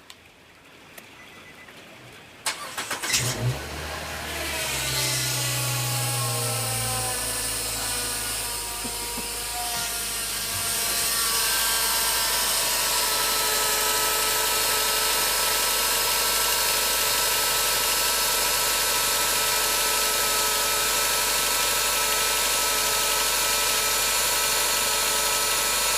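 Nissan Wingroad (Y12) engine cranked on the starter and catching about three seconds in, with a short squeak as it fires. It then idles with a high-pitched whine from the accessory area of the engine bay. The whine falls in pitch at first, then steps up about eleven seconds in to a steady, louder tone. The noise comes on at start-up and stops once the car is put in Drive; a mechanic suggested the squeak could be a loose belt.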